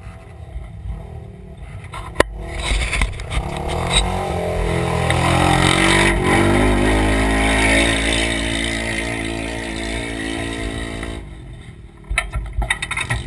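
Polaris RZR side-by-side's engine, heard from inside the open cab, climbing in pitch as it accelerates, held high for a couple of seconds, then easing off. Near the end come several sharp knocks and rattles.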